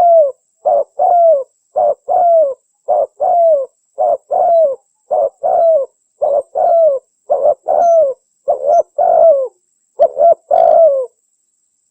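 Spotted dove cooing over and over: each phrase is a short note followed by a longer note that falls in pitch, repeated about once a second, stopping just before the end.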